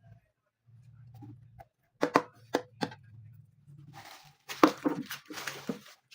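Items from the package being handled on a hard surface: four sharp knocks about two seconds in, then rustling with more knocks and clatter near the end.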